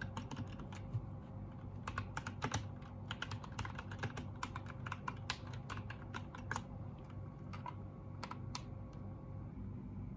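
Typing on a mechanical keyboard: irregular runs of sharp key clicks with short pauses, over a faint steady low hum.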